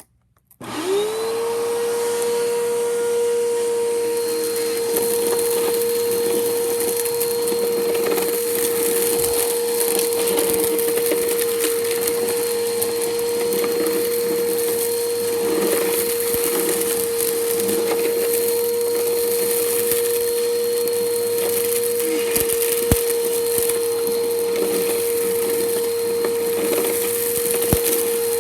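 Bissell Powerforce Helix upright vacuum cleaner switched on about half a second in, its motor whine rising quickly to a steady pitch. It then runs steadily over bare concrete, picking up debris with a continuous crunchy crackle and a few sharper clicks.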